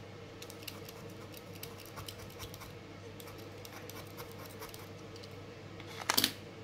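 A snap-off craft knife blade scraping a dark brown soft pastel stick, a quick run of faint scratches as the pastel is shaved into powder. About six seconds in there is one louder knock, as the knife is put down on the cutting mat.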